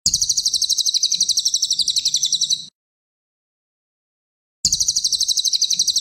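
Cililin songbird song from a masteran training recording: a rapid trill of high notes, about ten a second, lasting about two and a half seconds, then a second identical trill starting after a pause of about two seconds.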